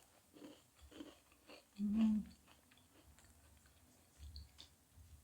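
Close-up chewing of a crisp butter cookie (lengua de gato), faint and repeated, with a short hummed "mm" about two seconds in.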